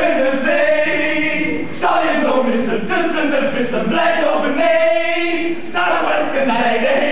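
A small group of male voices singing together.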